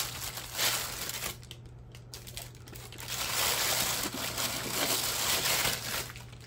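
Plastic poly mailer bag crinkling as a hand handles it and reaches inside, in two spells with a short lull between.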